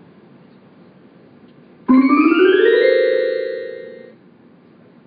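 Electronic keyboard or synthesizer sound opening a song: about two seconds in, a loud chord starts suddenly, sweeps upward in pitch, then holds and fades away over about two seconds.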